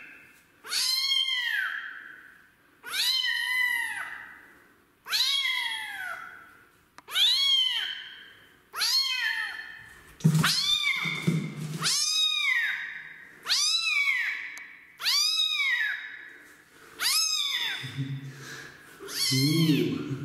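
Young kitten meowing over and over, about eleven high, loud meows, each rising and then falling in pitch, roughly one every two seconds.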